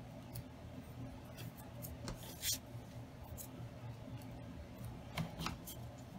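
Hands handling ribbon and a small stocking-covered craft piece while pressing a glued ribbon end in place: faint, scattered clicks and rubbing.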